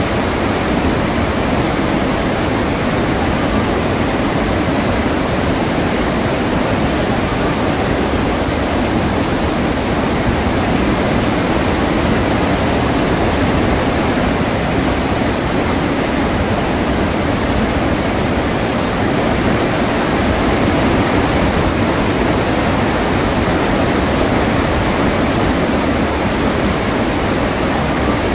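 Iguazu Falls: the steady, unbroken rush of many large cascades of water plunging into a gorge.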